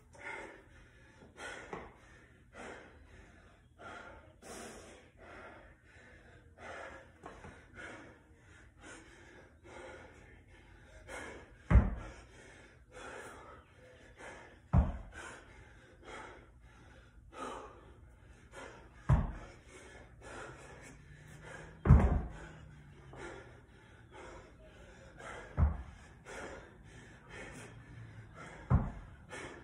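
Heavy, gasping breaths about once a second from a winded athlete. From about twelve seconds in, a loud thud comes every three to four seconds, six in all, as a 50-pound dumbbell touches down on the rubber mat between reps.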